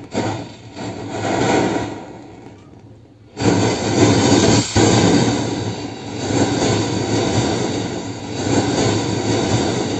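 Homemade copper-coil alcohol stove burning with a loud, jet-like rushing noise. The noise dies down about two seconds in, then surges back suddenly as the flame flares up, and keeps rising and falling after that.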